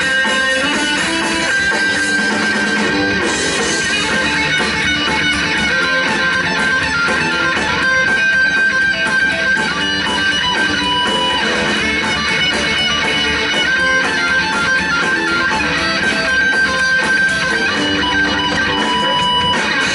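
Live instrumental rock trio playing: electric guitar over bass guitar and drums, with sustained guitar notes ringing over a steady rhythm.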